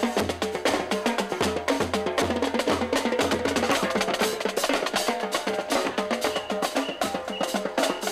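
Upbeat music with fast, dense percussion over pitched notes and a pulsing bass line.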